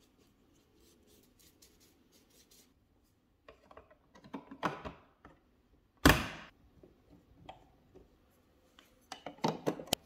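Small handling sounds from fitting plastic switch wall plates: faint scratching strokes, then rustling and light clicks. About six seconds in there is one sharp, loud plastic click. Near the end a quick run of clicks and scrapes comes as a screwdriver engages the plate screws.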